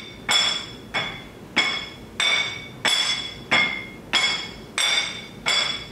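A spatula tapping a plate in a steady beat: about nine evenly spaced clinks, roughly one every two-thirds of a second, each ringing briefly.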